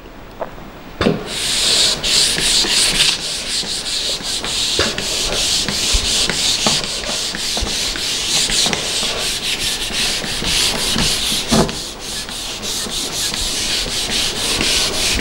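A hand-held board duster scrubbing quickly back and forth across a whiteboard, wiping off marker writing. There is a knock about a second in as the duster meets the board, then a steady run of fast rubbing strokes.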